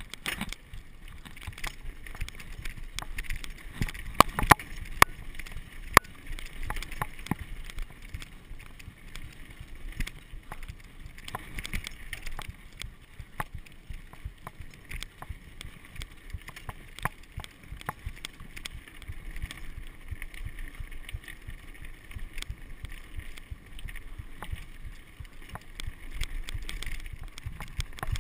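Mountain bike rolling fast over rocky dirt singletrack: knobby tyres crunching on loose gravel under a constant rumble of wind on the microphone, with frequent sharp clacks and rattles from the bike jolting over rocks, the loudest a cluster of knocks about four to six seconds in.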